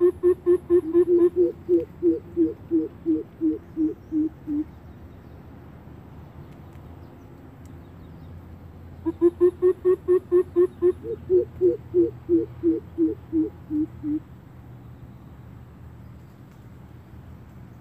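A bird's hooting call: two runs of quick, evenly spaced hoots of about four a second, one at the start and one about nine seconds in, each lasting about five seconds. In each run the pitch lifts a little partway through and then sinks toward the end.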